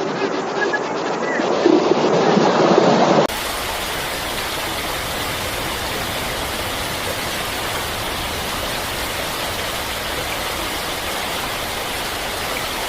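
A loud, muffled rushing noise that cuts off abruptly about three seconds in. It gives way to a steady, even hiss that does not change.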